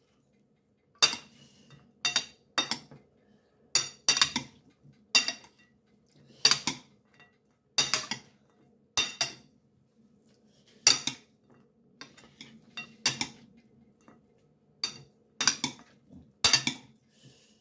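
Metal spoon clinking against a ceramic bowl as a salad is tossed: irregular sharp, ringing clinks, often two or three close together, with gaps of a second or two between.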